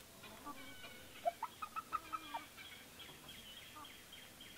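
Chickens clucking faintly, a scatter of short calls that come thickest between one and two and a half seconds in.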